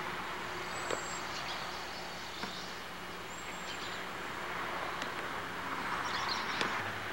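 Outdoor ambience: a steady background hiss and distant hum, with a few faint high chirps and thin whistles over it and the odd small click.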